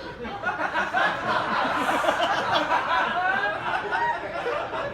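Comedy-club audience laughing at a punchline: many voices laughing together, building about half a second in and tapering off near the end.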